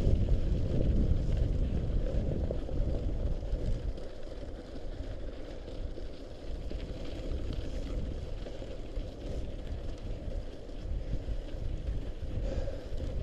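Wind buffeting the microphone over the rumble of a mountain bike rolling along a snowy, slushy gravel trail. It is louder for the first few seconds, then eases.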